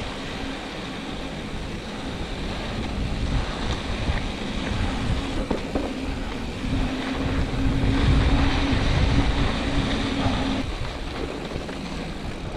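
Mountain bike rolling fast over a sandy, gravelly dirt trail, with wind rumbling on the camera microphone and louder for a few seconds past the middle. A steady hum sounds for about four seconds in the second half.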